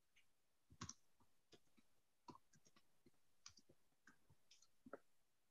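Near silence with faint, irregular clicks scattered through, a little stronger near the start and near the end.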